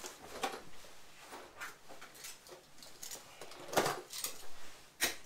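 Handling noise from a box of 1/4-inch toggle bolts: scattered light clicks and small metal rattles, with a sharper click about four seconds in and another near the end.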